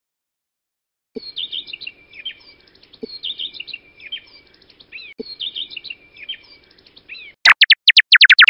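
Recorded birdsong: a short phrase of chirps and trills looped three times, about every two seconds. Near the end comes a loud, rapid run of downward-sweeping chirps.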